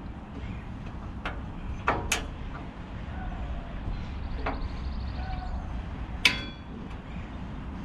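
Push-button igniter of a Blackstone 22-inch tabletop propane griddle clicking as the two burner knobs are pushed in and turned to light the burners: about five sharp clicks, the loudest near the end, over a steady low rumble.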